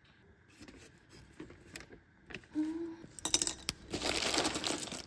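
Light clicks and clinks of small hard objects being handled, building to a denser rattling clatter near the end.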